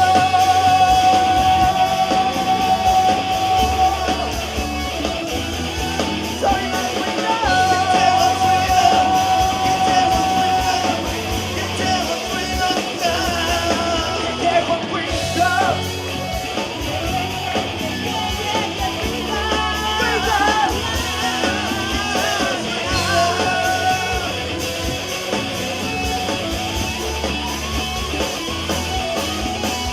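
Live band playing an upbeat pop song, with singing over a steady drum beat.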